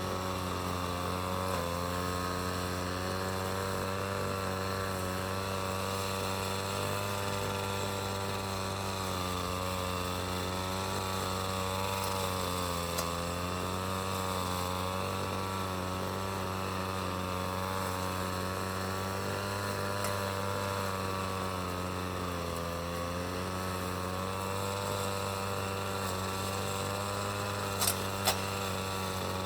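City traffic drone dominated by a vehicle engine running at a steady pitch over a low hum, the pitch sagging briefly a few times. Two sharp clicks near the end.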